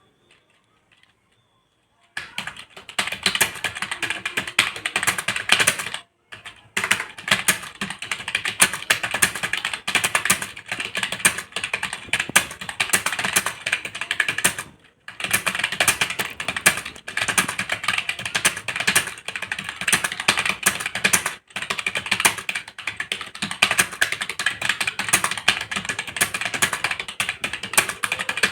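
Fast typing on a computer keyboard: a dense, continuous run of key clicks starting about two seconds in, with brief pauses three times.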